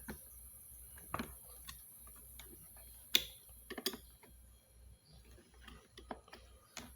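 Scattered sharp clicks and knocks of hard plastic parts and tools being handled while a Miele vacuum cleaner is taken apart, the loudest knock about three seconds in and a quick pair just before four seconds.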